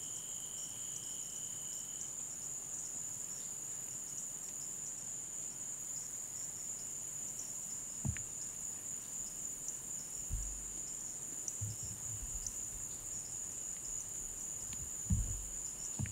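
Steady high-pitched insect chorus, with a second, lower insect trill during the first two seconds. A few faint low thumps and clicks come in the second half.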